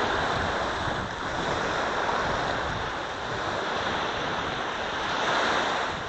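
Small waves breaking and washing up on a sandy beach, the level gently swelling and fading, with wind rumbling on the microphone.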